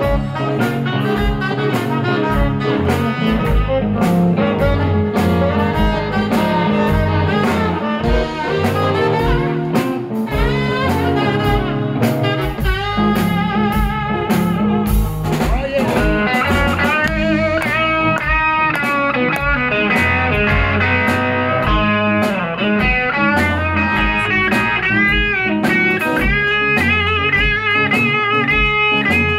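Live blues instrumental by a small band: saxophone, electric guitars, bass guitar and drum kit with a steady beat. About halfway through, the lead passes from the saxophone to an electric guitar playing bent notes.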